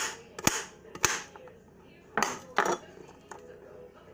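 Kitchen knife chopping on a cutting board: sharp knocks about twice a second, then a pair of heavier knocks about two seconds in and a few faint taps.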